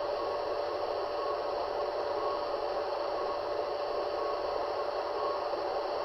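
HO-scale model freight train running on the track: a steady whirring of wheels on rails, with a constant motor hum.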